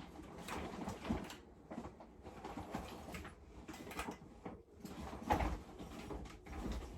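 Irregular knocks, clicks and rattles of blinds and their fittings being handled and fitted, with a heavier thump about five seconds in.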